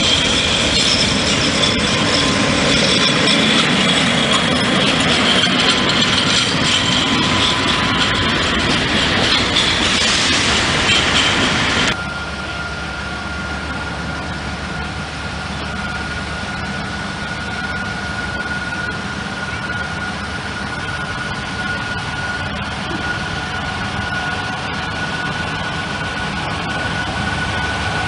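A train running past with loud rolling noise and a high tone over it. About twelve seconds in, the sound cuts abruptly to a quieter, steady rumble of a train's engine idling, with a thin steady whine.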